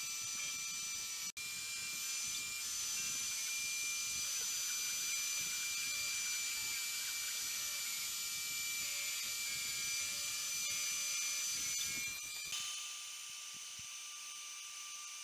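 Dremel rotary tool spinning on a homemade stepper-driven CNC mill, a steady high-pitched whine as it engraves a tile. The sound drops slightly and changes near the end.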